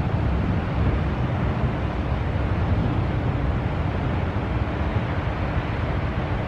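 Wind buffeting the microphone over a steady rumble of road traffic.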